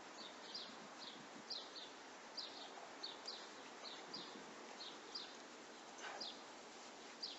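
A small bird chirping over and over, short high notes falling in pitch at roughly three a second, over steady outdoor background hiss.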